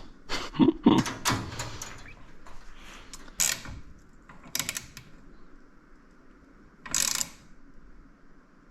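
Ratchet wrench clicking in short strokes while bolts are tightened: a quick run of clicks at first, then a few separate rasping strokes spread over the rest.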